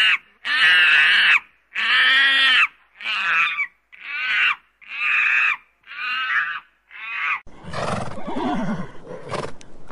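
A monkey calling over and over, about one wavering call a second, the calls growing quieter as they go on. About seven and a half seconds in, horses take over with low grunts, snorts and a whinny.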